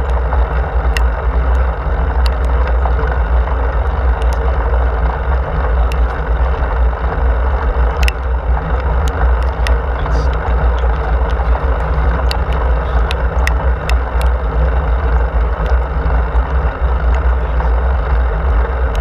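Wind buffeting the microphone of a bicycle-mounted camera while riding, a steady low rumble, over the hiss of tyres on wet asphalt, with scattered small clicks.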